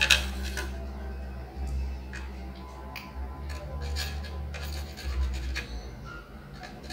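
Soldering iron tip and tweezers scraping and clicking against small components on a laptop motherboard while filter parts are desoldered: scattered light clicks and scrapes over a steady low hum.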